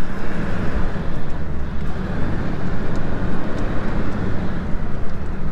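Inside the cab of a Ford tow truck with a 7.3-litre diesel, driving slowly up a rough dirt trail: a steady engine drone mixed with tyre noise on gravel and light rattles from the cab.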